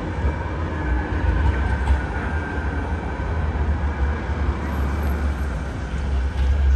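Manchester Metrolink tram running along street-level track and moving away, over a steady low rumble of city traffic.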